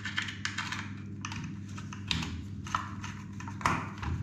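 Irregular small clicks and taps of a screwdriver and fingers on the plastic casing and terminals of an over-sink water heater, about ten in four seconds, over a steady low hum.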